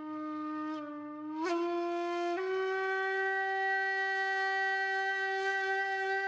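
Music: a sustained, reedy wind-instrument-like note that steps up in pitch about one and a half seconds in and again a second later, then holds a long steady tone.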